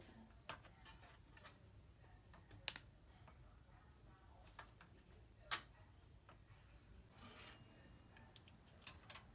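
Quiet handling of computer parts: scattered light clicks and taps, with two sharper clicks about three and five and a half seconds in.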